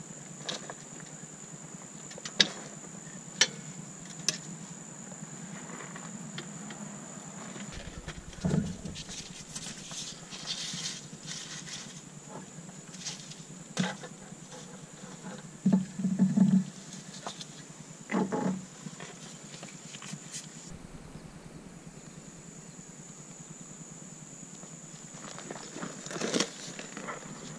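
Scattered clinks, knocks and a few heavier thumps of hand work on a car's front suspension as the CV axle is freed and pulled out of the hub and transmission, over a steady high-pitched whine in the background.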